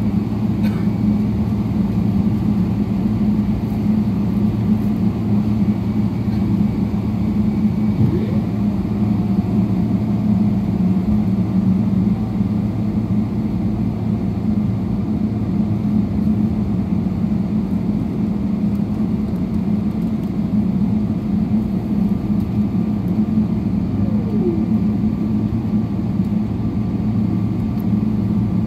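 Jet airliner taxiing, heard from inside the passenger cabin: a steady low drone of the engines and cabin noise.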